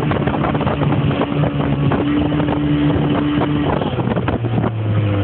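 The 55 hp engine of a 17 ft speedboat running under way, with wind and water noise over it; its note drops lower about four and a half seconds in.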